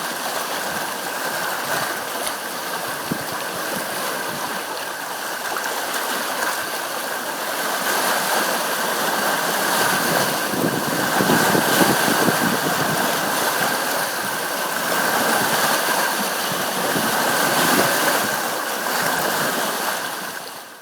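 Sea waves washing in a steady rush that swells louder about halfway through and again near the end, with a thin steady high whine running underneath.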